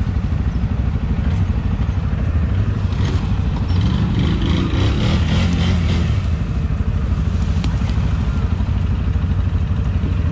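ATV engines: one idling steadily close by, with a pulsing low throb, while another ATV's engine revs up louder for a couple of seconds around the middle as it drives up past on the slope.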